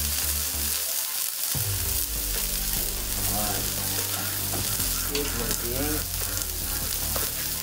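Rau bò khai greens sizzling as they stir-fry in lard in a wok over a wood fire. A low steady hum comes in underneath about a second and a half in.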